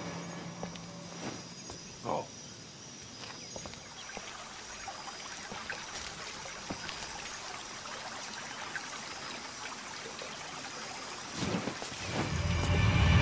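Quiet outdoor ambience with faint scattered ticks and a brief rising squeak about two seconds in; music fades in near the end.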